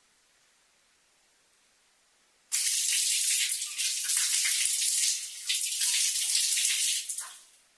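Water running and splashing, starting abruptly about two and a half seconds in and dying away near the end, with a faint quiet hush before it.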